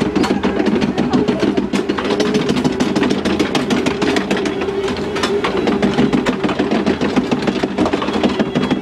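Log flume lift conveyor clattering steadily, a dense run of clicks over a constant mechanical hum, as the log boat is hauled up the lift hill.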